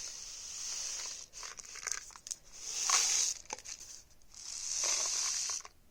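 Homemade rain stick, a paper towel tube with rice inside and foil and wax-paper ends, tipped back and forth so the rice pours through with a rushing hiss. It comes in three swells, with small ticks of grains striking.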